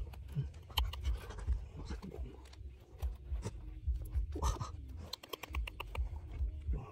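Scratching and scraping with many small clicks and dull low thuds throughout.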